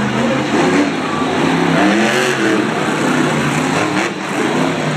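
Monster truck's supercharged V8 engine revving up and down hard, its pitch rising and falling several times as it drives.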